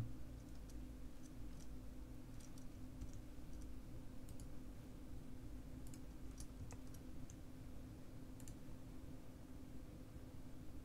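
Faint, sparse clicks of a computer mouse and keyboard being operated, about one a second, over a low steady electrical hum.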